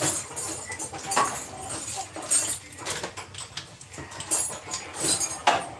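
Irregular clicks and metallic clinks of hand tools knocking against engine parts.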